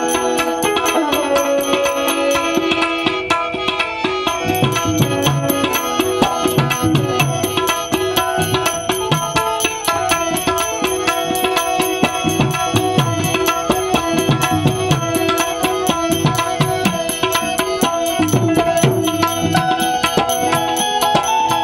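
Instrumental passage of harmonium, tabla and small hand cymbals (manjira). The harmonium holds steady reed chords while the tabla keeps a fast rhythm, and from about four seconds in its bass drum strokes bend in pitch.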